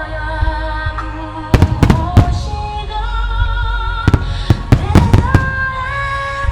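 Firework shells bursting in sharp bangs, in two clusters of several, over a song playing steadily with a wavering melody line.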